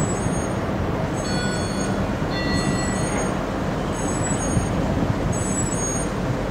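Steady wind and rumble on the open deck of a moving cruise ship, with a faint high beep repeating about every second and a half.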